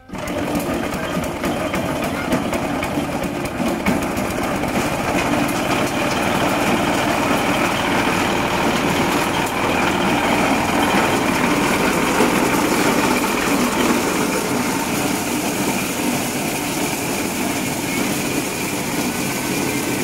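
Small single-cylinder stationary engine driving a maize sheller: it starts abruptly on a pull of the recoil starter and runs steadily, with maize cobs being fed through and stripped of their kernels.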